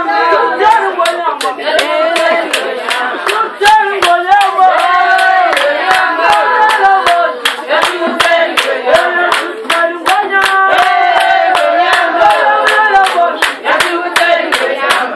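A group of voices singing together to steady hand-clapping, about three claps a second.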